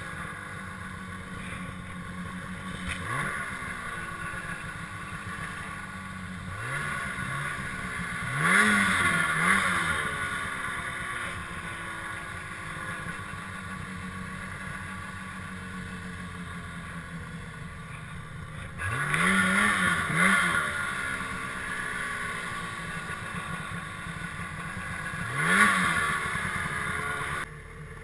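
Snowmobile engine revving in repeated short throttle bursts while pulling through deep snow. The pitch climbs sharply about seven times, loudest about a third of the way in, around two-thirds in and near the end, then the engine drops off suddenly just before the end.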